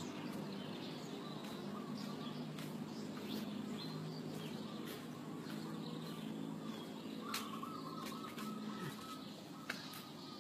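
Outdoor ambience while walking: a steady low background hum with faint bird chirps and scattered footsteps and handling clicks. Late on, a steady tone sounds for about two seconds.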